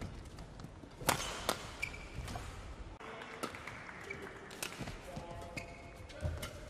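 Badminton play: racket strings cracking sharply against the shuttlecock several times, with court shoes squeaking briefly and footsteps thudding on the court floor between shots.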